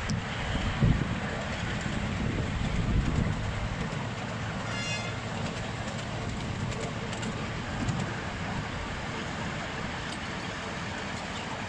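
Miniature ride-on train's carriages rolling along the track, wheels rumbling and rattling on the rails. There are a few low knocks in the first three seconds and a quick run of ticks about five seconds in.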